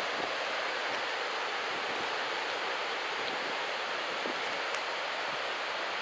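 Steady hiss of ocean surf washing along a beach, even throughout with no single wave crash standing out.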